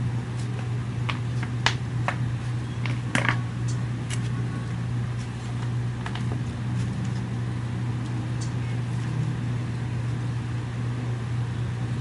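Steady low hum throughout, with scattered light clicks and ticks of small pliers working a thin wire, most of them in the first four seconds.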